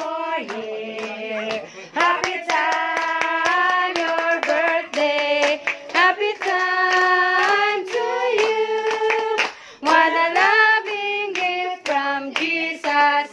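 A birthday song sung as a melody of long held notes, some with vibrato, with hand claps over it.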